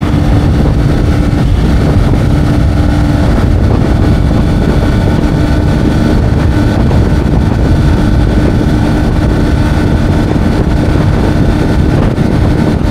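Bajaj Pulsar N125's single-cylinder engine running flat out on a top-speed run, holding one steady note under heavy wind rush on the microphone.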